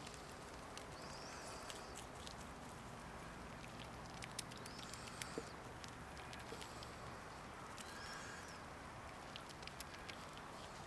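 Squirrel gnawing dried white corn kernels off the cob: a quiet run of irregular crisp clicks and crunches, a few sharper ones around the middle.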